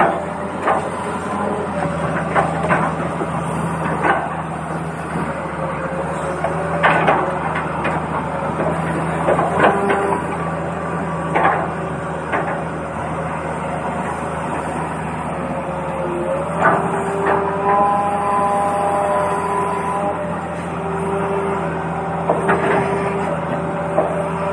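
Small electric motors of a toy excavator running with a steady whine that shifts pitch now and then, with scattered clicks and knocks of plastic parts and stones.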